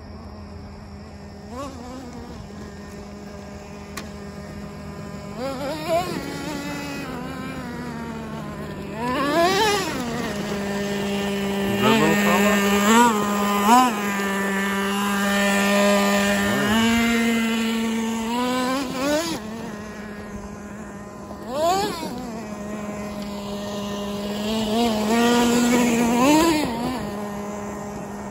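Traxxas T-Maxx's TRX 2.5 two-stroke nitro engine running and revving, with several quick rises and falls in pitch as the RC truck is driven. It is loudest in the middle and again near the end.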